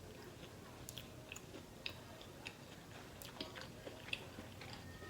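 Close-up chewing of food, with faint wet mouth clicks and smacks scattered irregularly through.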